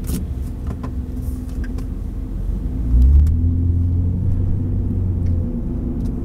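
Car engine and road rumble heard from inside the moving car's cabin. The engine note grows stronger about three seconds in as the car pulls ahead, then eases off a couple of seconds later. A few light clicks come near the start.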